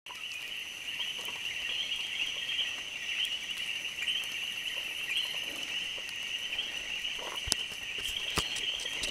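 Dense chorus of small frogs calling without a break, a steady high-pitched trilling mass of voices set off by rain after a dry spell. Near the end there are two brief clicks.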